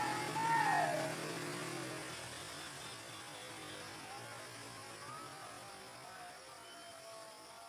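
A steady low hum that slowly gets quieter, with a short pitched sound bending up and down in the first second.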